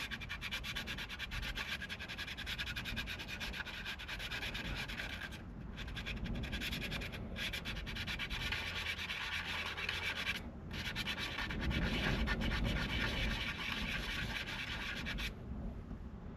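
Sandpaper rubbed rapidly back and forth by hand over a steering wheel rim, taking the surface down. It breaks off briefly twice and stops near the end.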